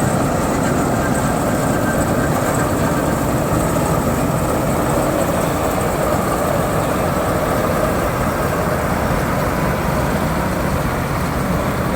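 Combine harvester's engine running steadily at full throttle with its rotary cutter engaged, cutting paddy.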